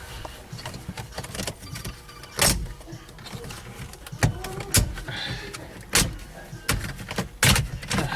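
Irregular clicks and knocks of tools and plastic interior trim being worked loose from a car's center console. Several sharp knocks stand out among quieter handling sounds.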